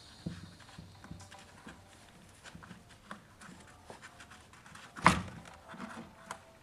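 Hands working on chainsaw parts: scattered light clicks and knocks of plastic and metal pieces being handled while fuel hoses are fitted, with one sharp, loud knock about five seconds in.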